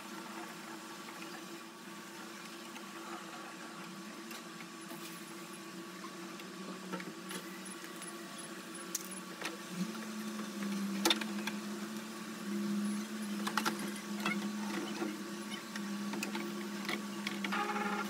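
Steady low mechanical hum; a second, lower hum comes in about ten seconds in and cuts in and out. A few sharp clicks of plastic parts being handled.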